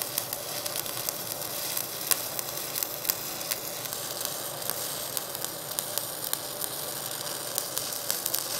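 Shielded metal arc (stick) welding arc burning on copper-nickel plate: a steady crackling sizzle with frequent sharp pops as the electrode is run along the joint.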